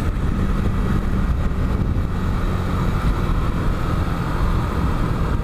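Motorcycle engine running steadily while riding, with a constant hum of road and wind noise.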